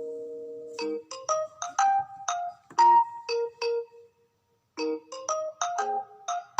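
Background music: a light, bright melody of short, quickly fading notes, breaking off briefly a little past the middle before resuming.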